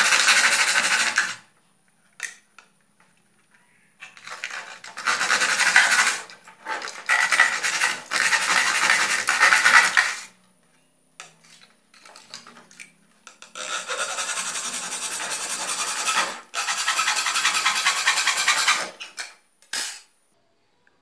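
A hand-held hacksaw blade sawing through an old TV circuit board: scraping strokes come in runs of two to four seconds, with pauses of up to three seconds between them and a few light clicks in the gaps.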